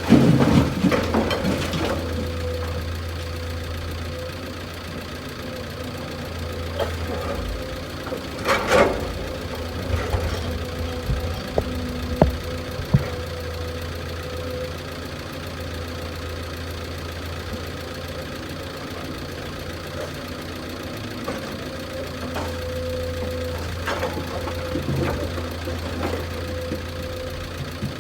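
Heavy machinery's diesel engine idling steadily, with scattered clanks and knocks: a cluster at the start and sharper ones about nine and twelve seconds in.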